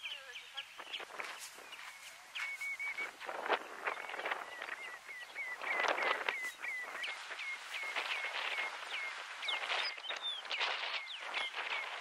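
Seabirds calling: a long run of short, high whistled notes, about two or three a second, over harsher scratchy calls.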